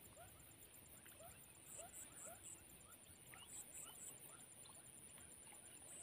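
Faint marsh wildlife chorus: many short rising chirps repeating every half second or so, over a steady high-pitched buzz.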